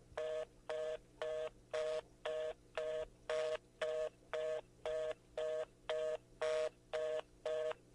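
Telephone fast busy (reorder) tone: a two-note beep pulsing about twice a second with equal gaps, the signal that the call cannot go through.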